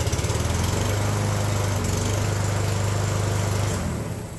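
Yard Machines push mower's small four-stroke engine running at a steady speed just after a choked start, with a freshly cleaned carburetor. Near the end it winds down toward a stop.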